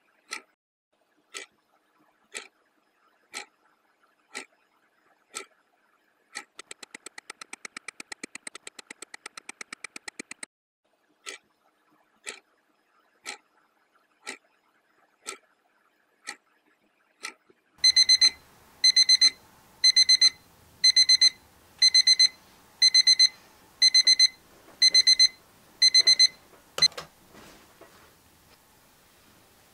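Clock ticking about once a second, with a quick run of rapid ticks partway through. About two-thirds in, an alarm clock starts beeping in short high bursts, one burst a second for about nine seconds, and then cuts off with a click, followed by faint bedding rustle.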